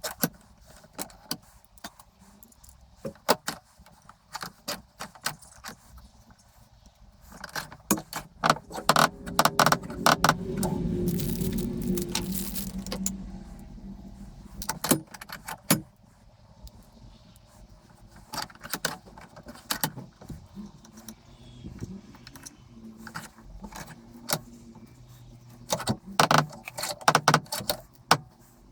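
Small metal parts clinking and knocking as they are handled, with a louder, busier stretch of clatter and a sustained low rumble in the middle.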